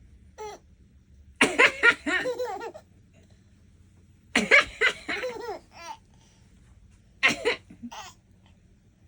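A baby laughing in three bursts of giggling, each set off by a person's short cough just before it.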